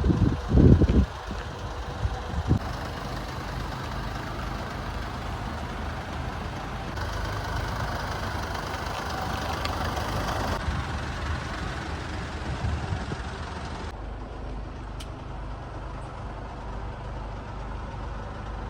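Mercedes-Benz Sprinter 314 CDI's 2.1-litre four-cylinder diesel engine idling steadily, with a few heavy knocks in the first couple of seconds.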